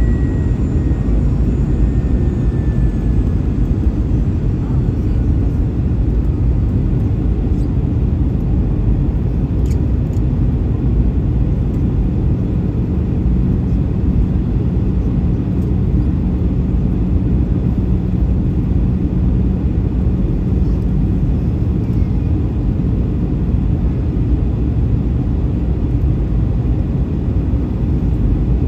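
Steady cabin noise inside an Airbus A321-211 airliner in flight: rushing air and the running of its CFM56 engines, loud and even. A low steady hum joins for several seconds in the middle.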